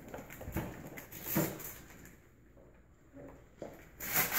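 Soft handling noises and a few light knocks, then paper crinkling loudly near the end as a gift bag and its wrapping are pulled open.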